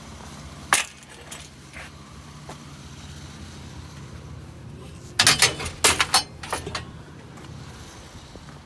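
Loose scrap metal clinking and clattering as it is handled: one sharp clink about a second in and a short run of jangling clatter a little past the middle. A steady low vehicle hum runs underneath.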